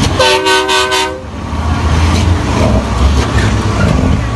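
A truck's multi-note air horn sounds one blast of about a second, several tones held together, right at the start. After it comes the steady low rumble of heavy truck engines and crowd noise.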